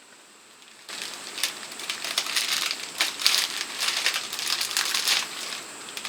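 Gift packaging crinkling and rustling as it is handled and unwrapped, starting about a second in with a dense run of small crackles.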